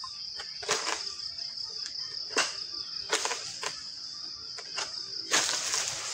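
Insects trilling steadily at a high pitch, broken by several sharp clicks or knocks. About five seconds in, the trilling stops and a broad rushing noise takes over.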